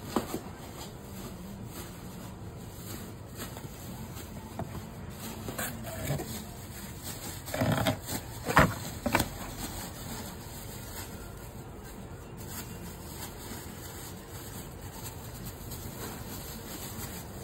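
Glass food-storage containers being handled and lifted out of a cardboard box: light handling sounds throughout, with a cluster of sharp knocks and clinks about halfway through.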